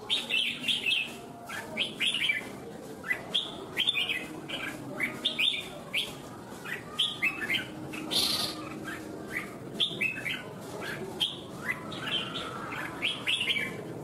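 Red-whiskered bulbul singing: a rapid series of short, bright chirping phrases, repeated in quick clusters with brief pauses.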